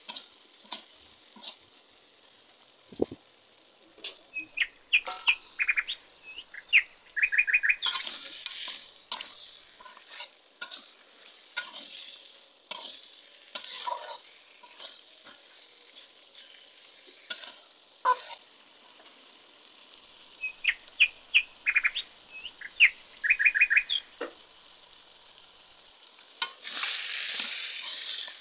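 Spice paste and chicken pieces sizzling in hot oil in a pan, with a metal spatula clicking and scraping against the pan as they are stirred. Twice there are bursts of short, rapidly repeated high chirps, and the sizzling grows louder near the end.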